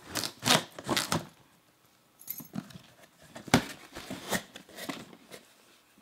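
Cardboard box being opened and its contents handled: tearing and crinkling noises in short bursts. Several come close together in the first second, and a sharp one about three and a half seconds in.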